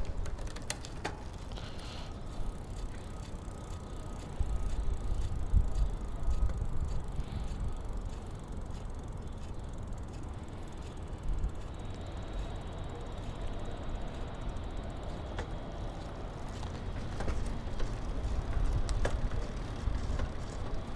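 A Specialized road bicycle being worked on: its drivetrain or wheels are turned, with a steady mechanical running sound and scattered clicks and knocks from handling.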